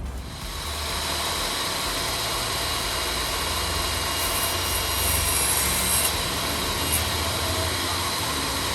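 Makita MLT100 10-1/4-inch table saw running at speed, a loud steady whir of the motor and spinning blade.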